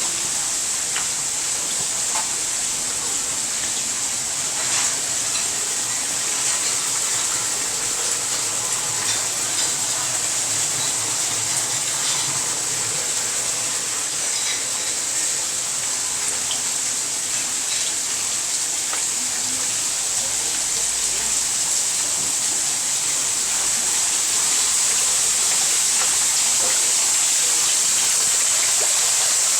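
Small garden waterfall splashing, a steady rush of falling water that grows a little louder near the end.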